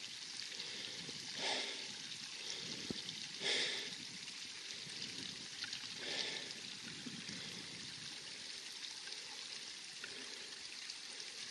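A person breathing hard while hiking over rough hillside grass: three heavy breaths a couple of seconds apart, then only a steady hiss.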